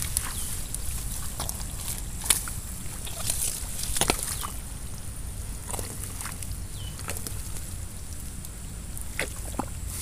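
Wet, thick mud squelching and sloshing in irregular bursts as bare hands dig and scoop through it. The sharpest squelches come about two seconds in and again about four seconds in.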